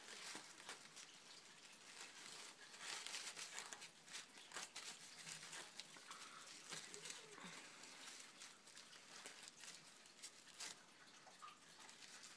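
Faint, irregular rubbing and scraping as old grease is wiped out of an RC car's transmission differential parts.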